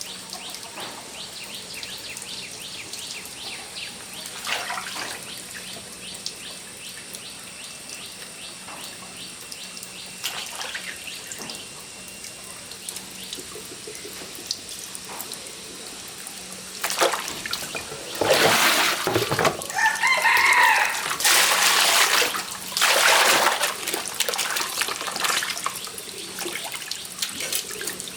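Water splashing and pouring in loud bursts during the last third, with a rooster crowing in the middle of it. Before that a steady high insect drone and small ticks.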